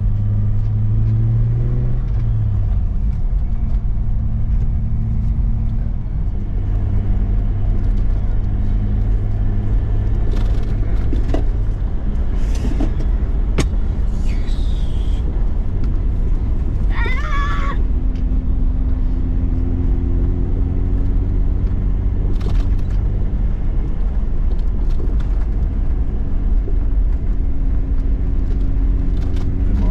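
Steady low drone of a car's engine and tyres heard from inside the cabin while driving, the engine note rising and falling slightly about two seconds in. A few sharp clicks come in the middle.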